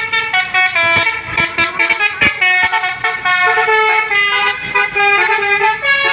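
Bus's Basuri-type telolet horn, an electric musical horn with several trumpets, playing a quick melody. It is loud and steps from note to note several times a second without a pause.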